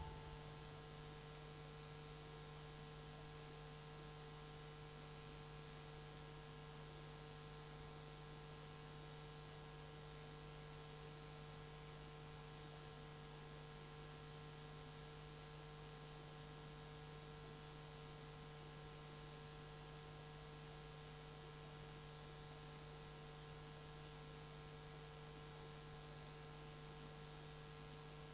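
Faint, steady electrical hum made of a few fixed tones, unchanging throughout, with no other sound over it.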